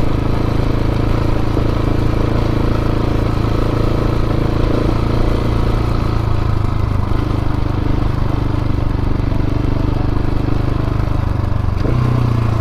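Dual-sport motorcycle engine running steadily while riding, with a brief change in the engine note near the end.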